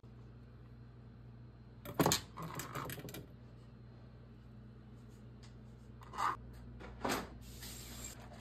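Kitchen knife tapping and clicking against a thin plastic cutting mat while hard-boiled egg is chopped: a cluster of sharp taps about two seconds in, then a few scattered taps and clatters near the end, over a steady low hum.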